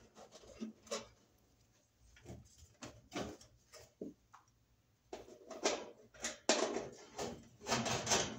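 Scattered clicks and light metallic knocks of a screwdriver and screws being worked on the sheet-metal back panel of an electric range as screws are taken out, with short quiet gaps, busier in the last few seconds.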